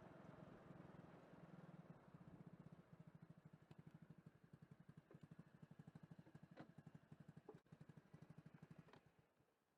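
Faint vehicle engine idling with a fast, even pulsing beat and a few light clicks, dying away about nine seconds in as the engine is switched off.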